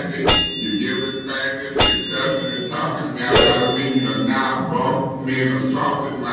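A man talking throughout, cut into three times by a sharp strike with a short metallic ring, about a second and a half apart.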